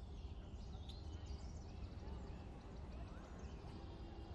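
Faint outdoor street ambience: a steady low rumble, with a few faint bird chirps.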